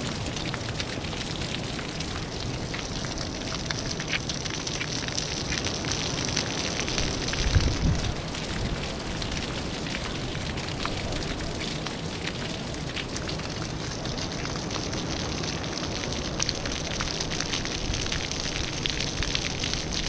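Small vertical jets of a poolside deck fountain splashing steadily back onto the pool water, a dense patter of many small drops over a constant hiss. A brief low rumble a little before halfway through.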